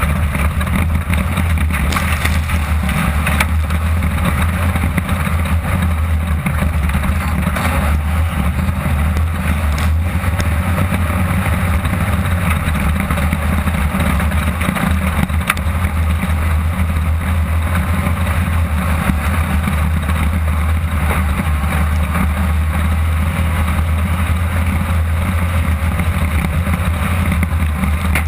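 A 1600-class off-road race car's engine running steadily at speed, heard from inside the cockpit with a heavy low drone and a constant wash of noise.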